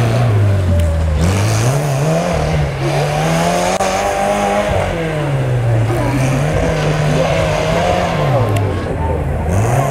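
Small homemade tractor's engine revving hard under load as it climbs a dirt slope, its pitch rising and falling several times as the throttle is worked.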